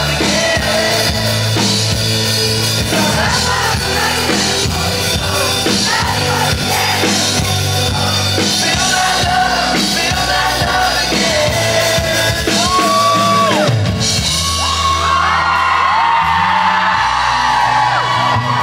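Live pop-rock band playing, with a lead vocal over bass guitar, guitar and drums, heard from within the audience. Audience voices sing along and whoop, and several long held sung notes come in about two-thirds of the way through.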